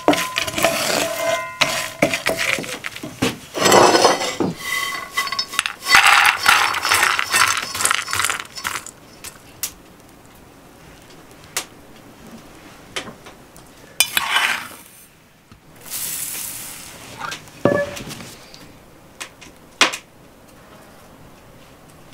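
Toasted chopped walnuts rattling and clinking as they are scraped with a wooden spatula out of a frying pan into a metal bowl, busy for the first eight or so seconds. After that it is quieter, with a few separate knocks and clinks of kitchenware.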